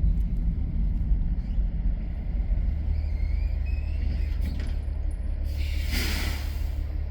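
Roll-off truck engine running with a steady low rumble. Partway through there is a faint high squeal, and near the end a hiss of released air lasting about a second.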